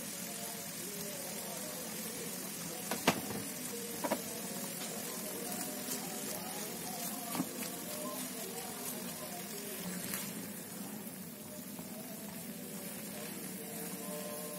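Shredded spicy chicken and basil leaves sizzling in a frying pan as they are stirred, with a green spatula knocking sharply against the pan a few times.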